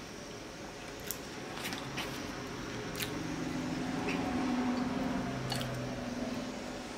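Close-up eating sounds of noodle soup: chewing and wet mouth noises, with a few sharp clicks of chopsticks and a plastic spoon against a glass bowl. A low hum rises in the middle and fades near the end.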